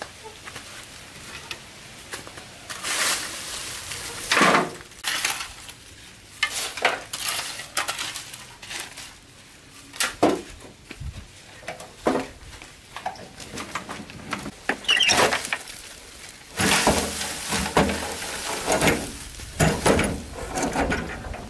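Shovel scraping and clanking against a steel wheelbarrow tray as soil is scooped into it: a run of irregular scrapes and metallic knocks, with a load tipped out of the barrow near the end.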